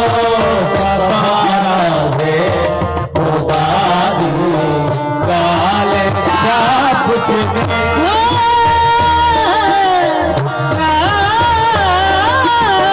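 Qawwali music: a male lead singer sings with tabla accompaniment, holding one long high note about eight seconds in.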